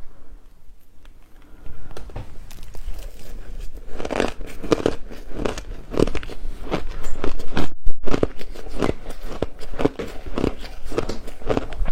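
Matcha ice being bitten and crunched close to the microphone, one crisp bite after another. The crunching starts about two seconds in and comes louder and faster from about four seconds in, with a brief break near eight seconds.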